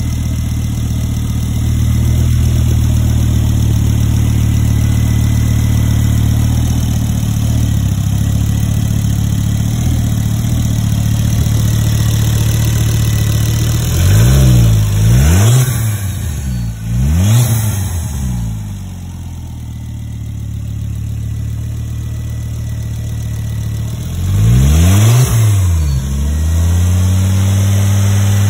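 Ford Focus ST225's 2.5-litre turbocharged five-cylinder petrol engine idling steadily, blipped on the throttle several times about halfway through and twice more near the end, each rev rising and falling quickly before it settles back to idle.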